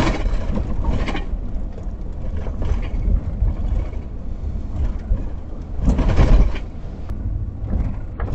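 Van driving on a rough, muddy dirt road, heard from inside the cab: a steady low rumble of engine and tyre noise, growing louder for a moment near the start and again about six seconds in as it goes over the rough surface.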